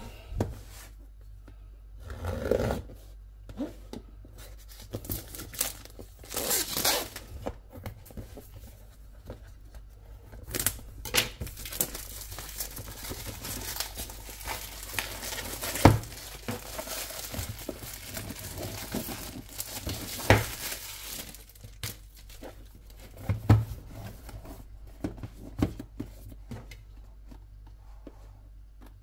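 A drone's retail packaging being opened by hand: tearing and crinkling of wrap and cardboard with many small clicks. There is a denser stretch of rustling in the middle and a few sharp knocks later on.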